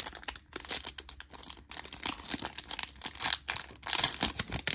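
Foil wrapper of a trading-card pack crinkling as it is handled and opened by hand: a rapid, irregular crackle.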